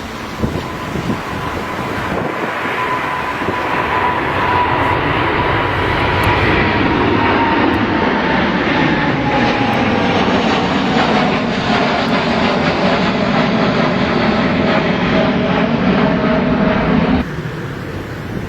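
Airliner's engines passing close by, growing louder over several seconds, with a whine that slowly falls in pitch; the engine sound cuts off suddenly near the end, leaving wind noise on the microphone.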